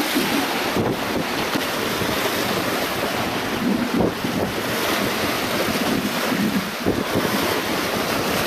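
Wind buffeting the microphone over small waves washing against rocks: a steady rush of noise, with a few brief bumps.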